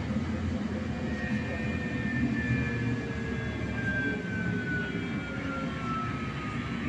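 Trolleybus electric traction motor whining, its pitch falling slowly and steadily as the motor winds down, over a steady low rumble of the ride heard from inside the cabin.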